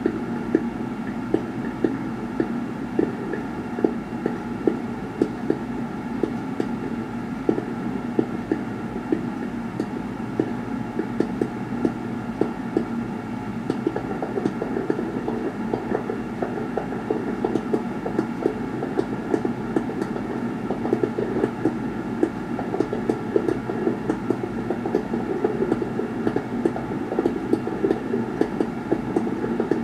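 Fireworks going off: dense, rapid pops and crackles over a steady low rumble, heard through a TV's speakers.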